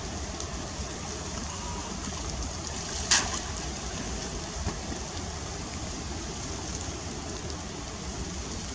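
Steady outdoor water noise with a low rumble, and one short, sharp noise about three seconds in, the loudest moment.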